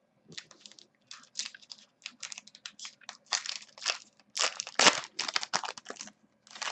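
Crinkling and crackling of a foil trading-card pack wrapper being handled and torn open: a fast, irregular run of crackles, loudest about two thirds of the way through.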